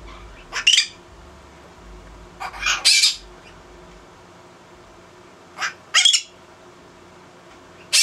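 Blue-crowned conure screeching: loud, harsh squawks in short clusters, about a second in, around three seconds and around six seconds. It is agitated, calling as the owner reads it to be let out of its cage.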